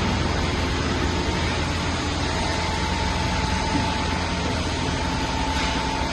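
CNC lathe running steadily: a low mechanical hum with a thin, steady whine that grows stronger about two seconds in.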